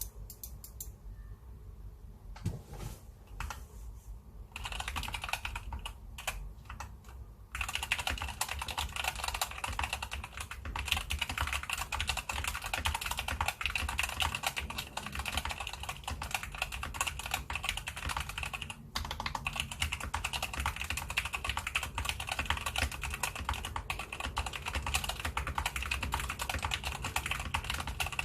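SK61 mechanical keyboard with Gateron Optical Brown tactile switches being typed on: a few scattered keystrokes at first, then fast, continuous typing from several seconds in, with one brief pause about two-thirds of the way through.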